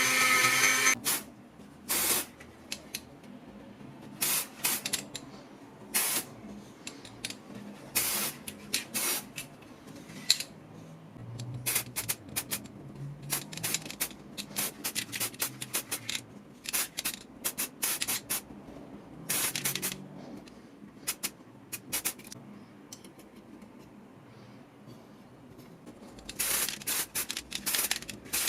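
A power tool runs and stops about a second in, then short hissing bursts of spray come on and off repeatedly, some brief and some lasting about half a second.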